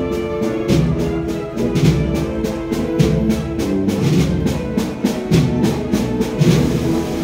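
Spanish processional wind band playing a marcha: brass and woodwinds hold sustained chords over a steady, regular drum beat.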